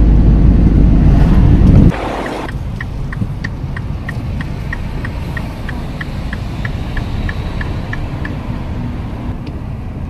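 Loud rumble of a car driving, which cuts off about two seconds in to a quieter engine hum. Over the hum comes a run of short, high electronic beeps, about three a second, lasting around five seconds.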